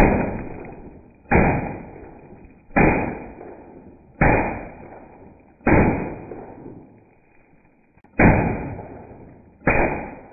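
Shots from an Evanix Max .25 caliber full-auto PCP air rifle, played back slowed down: seven deep, drawn-out reports about one every second and a half, with a longer gap before the sixth, each dying away slowly.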